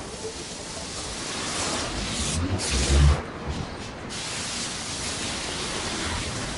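Wind on the microphone of a moving body-worn camera: a steady rushing hiss, with a louder low buffeting rumble about three seconds in.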